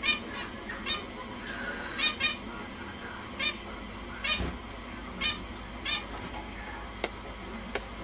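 Small finches giving short, nasal calls, one or two a second, with two sharp clicks near the end.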